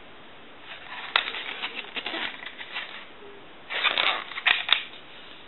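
Telephone cover being handled and turned over: a run of clattering clicks and rubbing for about two seconds, then a shorter burst of sharper clicks near the end.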